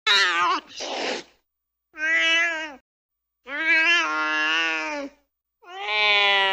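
Cat meowing in four separate drawn-out calls, each cut off into silence, with the last call the longest. The first call is followed by a short hiss.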